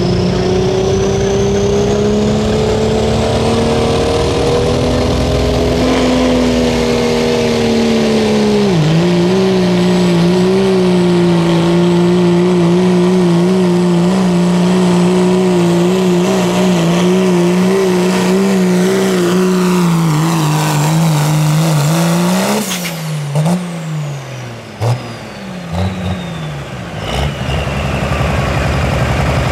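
Turbocharged diesel engine of a Ford pickup at full throttle under load, pulling a sled, with a high turbo whistle climbing over the first few seconds. The engine pitch dips briefly about a third of the way in, then holds with a slight waver. About three-quarters through the engine drops off in a few short revs as the pull ends, and the turbo whistle winds down.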